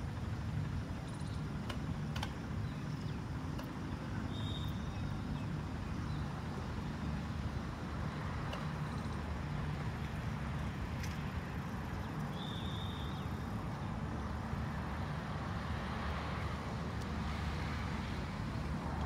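Steady low outdoor rumble, with two short high chirps, one about four seconds in and one about twelve seconds in.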